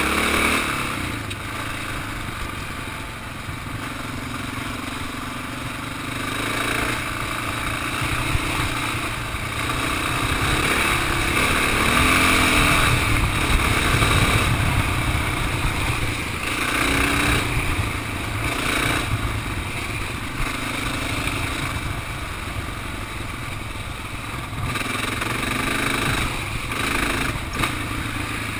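Single-cylinder four-stroke dirt bike engine running under throttle along a trail, its revs rising and falling with the riding, loudest about midway. A low rumble of wind on the microphone runs underneath.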